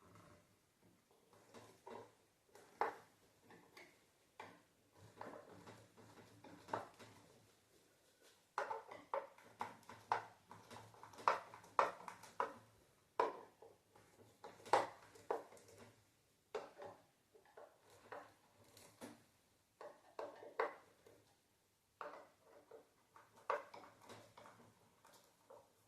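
Irregular taps, clicks and metallic clinks of hand work with tools and metal hardware, some in quick clusters, over a faint low hum.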